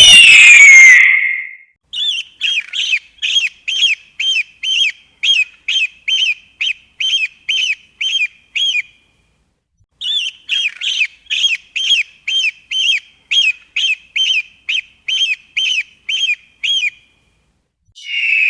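Eagle calls: a loud scream falling in pitch at the start, then two long runs of short, high piping notes, about three a second, with a brief pause between the runs.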